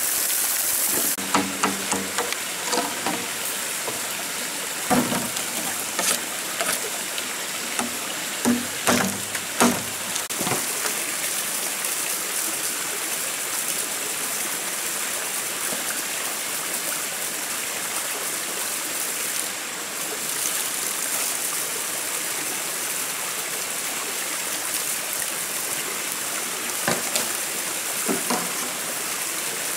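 Steady rushing of a rocky forest stream with a small cascade. A scatter of short sharp knocks and clatters comes over the water in the first ten seconds or so, and two more near the end.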